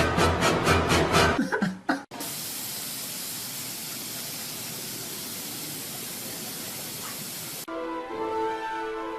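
Music with a fast beat cuts off, then a steady, even hiss runs for about five and a half seconds. Near the end a gentle melody of held notes starts.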